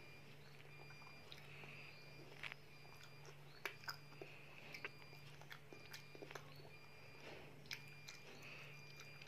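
A child faintly chewing chicken satay, with soft mouth clicks and smacks now and then over a steady low hum.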